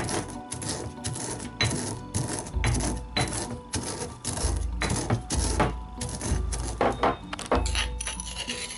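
Stone pestle pounding roasted glutinous rice in a granite mortar: sharp stone-on-stone clacks several times a second, unevenly spaced, as the grains are crushed to powder.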